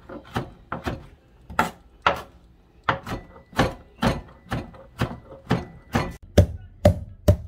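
Kitchen knife chopping fresh red chillies on a cutting board: a steady run of sharp knocks, about two strokes a second, loudest near the end.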